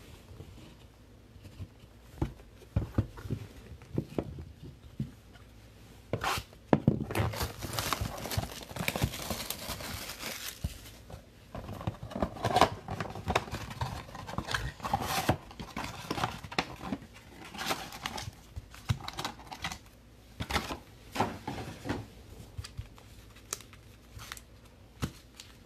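Trading-card pack wrappers crinkling and tearing while cards are handled, with scattered clicks and taps. The longest run of crinkling comes about seven to eleven seconds in.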